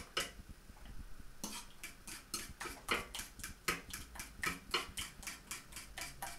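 Metal fork beating batter in a ceramic bowl. After a short pause about a second in, the fork clicks against the bowl in a quick, even rhythm of about four strokes a second.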